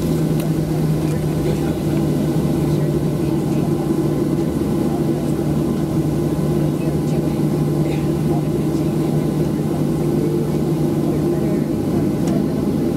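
Inside the cabin of a Boeing 737-700 taxiing, its CFM56-7B jet engines running at low taxi power: an even, unchanging hum over a steady rush of noise.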